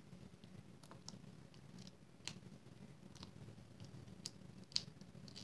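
Faint, scattered small clicks and ticks of hands handling paper and plastic: foam adhesive dimensionals being peeled off their clear backing sheet. The sharpest click comes a little before the end.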